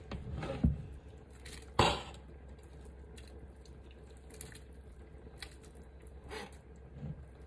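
Chopped chicken being scraped with a knife off a cutting board into a pot of soup, pieces dropping into the liquid with small splashes. There is a sharp knock of the knife or board just under two seconds in, with lighter scrapes and taps after it.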